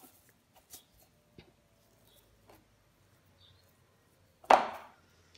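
Hands squeezing and gathering a moist ground-almond filling in a bowl: faint, sparse rubbing and small clicks. One short, loud sound comes about four and a half seconds in.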